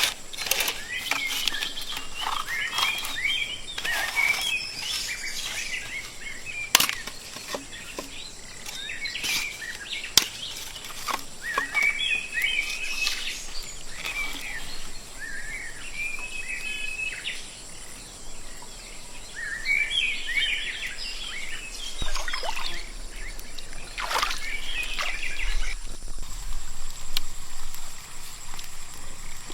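Birds chirping in repeated bursts, with scattered sharp taps and a faint steady high-pitched tone.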